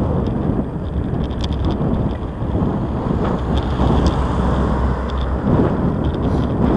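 Wind rumbling on the microphone of a camera mounted on a moving bicycle, mixed with tyre and road noise, with a few scattered small rattling clicks.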